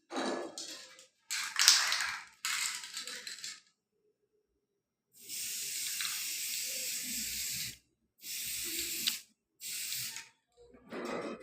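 Aerosol spray can used on a weld during magnetic particle testing: three short, irregular noisy bursts, then a steady spray hiss lasting about two and a half seconds and two shorter sprays near the end.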